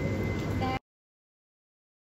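Outdoor street ambience with a low hum cuts off abruptly less than a second in, leaving dead silence.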